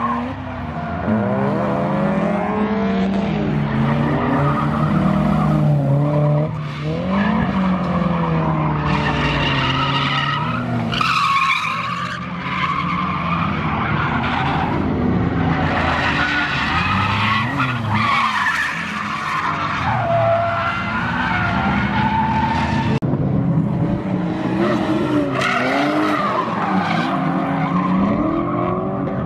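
Drift cars sliding through a corner in tandem: engines revving up and down over and over while the tyres squeal.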